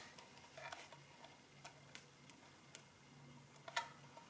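Faint, scattered mechanical clicks from a Multifix E1R mechanical calculator being handled, with one sharper click near the end.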